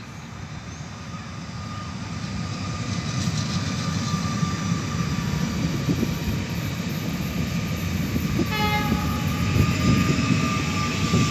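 Pesa Elf electric multiple unit pulling away and passing close by, its rumbling rolling noise and a steady motor whine growing louder as it gathers speed. A brief higher-pitched tone sounds about eight and a half seconds in.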